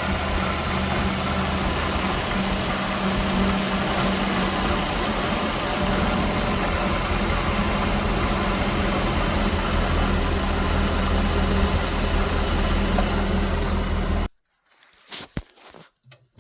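Vehicle engine running with a squeal that sounds like a slipping belt but comes from the engine fan clutch, whose bearing has failed. It cuts off suddenly about 14 seconds in, followed by a couple of faint knocks.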